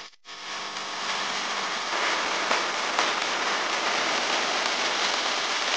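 Steady rushing wind over the microphone and road noise from a moving motorbike, with no clear engine note. It grows louder about two seconds in.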